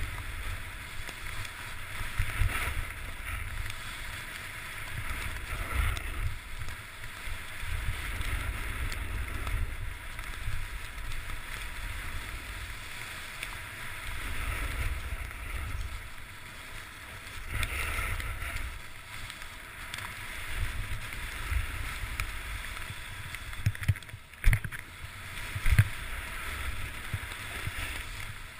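Wind buffeting the microphone of a camera worn while skiing, over the steady hiss of skis sliding through snow that swells and fades with the turns. Two sharp knocks sound near the end.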